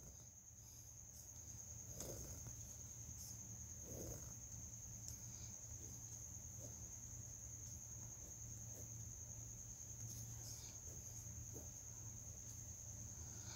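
A faint, steady, high-pitched insect trill, with soft scratches of a pen drawing lines on paper now and then.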